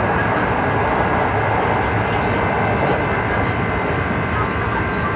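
Kintetsu 2800 series motor car running at a steady speed: an even rumble under the floor with a few steady whining tones from its Mitsubishi MB-3110A traction motors and drive. The drive coupling gives the car an odd, unusual-sounding noise that sets it apart from other low-toned cars of the class.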